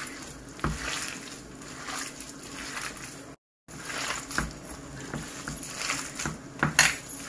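Hands mixing and squeezing shredded cabbage with raw minced meat, egg and spices on a ceramic platter: a soft, irregular rustling and squishing with small clicks. There is a brief gap of silence a little past the middle.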